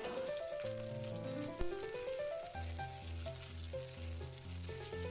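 Diced potato and eggplant sizzling as they fry in mustard oil in a kadai while being stirred with a spatula. Soft background music plays along, with a steady bass pattern from about halfway.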